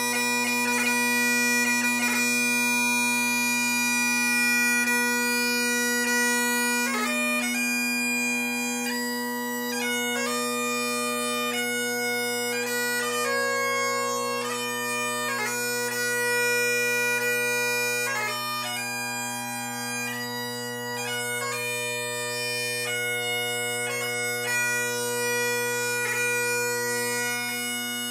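Great Highland bagpipe playing. The drones hold a steady low chord under the chanter, which sustains long notes for the first several seconds and then plays a quick phrase full of gracenotes.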